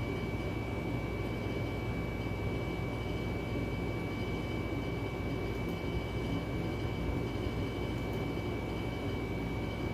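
Steady mechanical hum and low rumble with a constant high-pitched whine.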